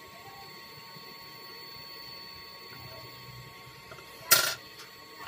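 Faint steady workbench background, then one short, loud clack about four seconds in as a thin metal hand tool is put down on the bench while a shorted capacitor is desoldered from a laptop motherboard.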